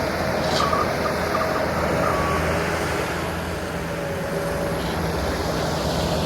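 Case 445 skid steer's diesel engine running steadily while working, with a few short high beeps about half a second to two seconds in.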